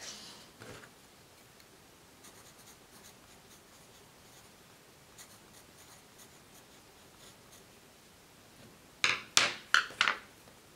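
Graphite pencil writing lightly on paper in faint scratchy strokes, followed about nine seconds in by a quick cluster of four or five louder knocks and rustles.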